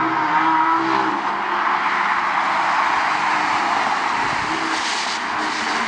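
Race car running at speed on the circuit, its engine note clear in the first second or so, then a steady rush of engine and tyre noise.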